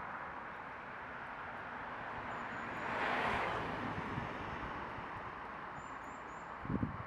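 Steady hiss of distant road traffic, swelling as a vehicle passes about three seconds in and then fading, with a few faint high chirps and low thumps near the end.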